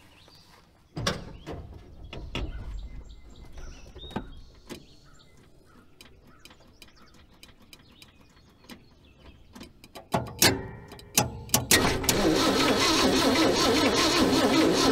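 Starter cranking a 1976 Ford F-150's engine for the first time in 22 years, coming in about twelve seconds in after a few clicks and knocks, then running on steadily and rhythmically. The engine turns over freely, with no binding or clunking, and does not fire.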